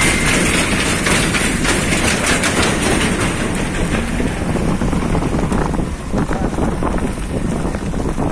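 A vehicle travelling on a road: a steady rush of road and running noise with frequent small rattles and knocks. It dips a little about six seconds in.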